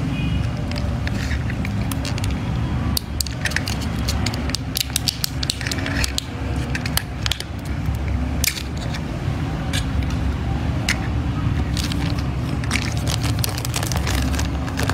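Plastic toy packaging crinkling and crackling in the hands as it is opened, with irregular sharp clicks over a steady low background rumble.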